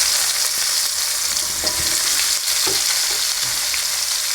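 Onions sizzling steadily in hot coconut oil in a pan, with a few faint knocks from stirring partway through.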